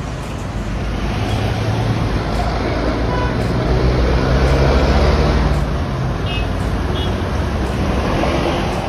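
Street traffic with a heavy motor vehicle's engine passing close, its low hum swelling to a peak about halfway through and then fading.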